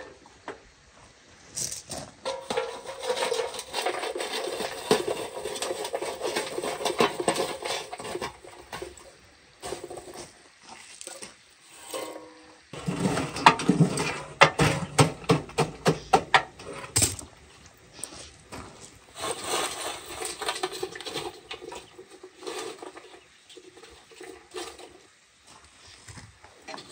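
Food preparation by hand: irregular rustling and handling noise, with a quick run of sharp knocks about halfway through.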